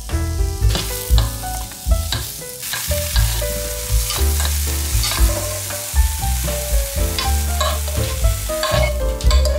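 Sliced button mushrooms sizzling in a nonstick frying pan, stirred and pushed around with a metal spoon that clicks and scrapes against the pan; near the end they are scraped out onto a plate.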